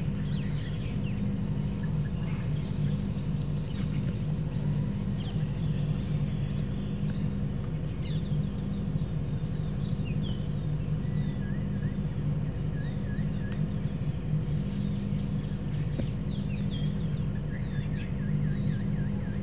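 Birds chirping on and off, short scattered calls with a quick run of repeated chirps near the end, over a steady low hum.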